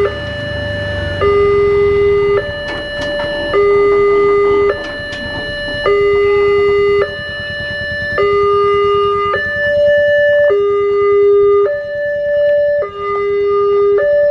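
Railway level-crossing warning alarm sounding: an electronic two-tone signal that alternates between a lower and a higher tone, each held a little over a second. It signals that a train is approaching and the crossing is closing.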